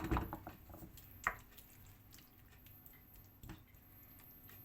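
Spoon working through a creamy chicken-and-vegetable mixture in a pan: a few soft wet squelches, then single clicks about a second in and again near three and a half seconds.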